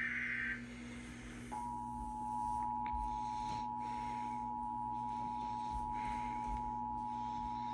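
Emergency Alert System tones. A burst of the SAME digital header's warbling data tones ends just after the start. About a second and a half in, the two-tone attention signal (853 and 960 Hz together) starts and holds steady, announcing a required monthly test.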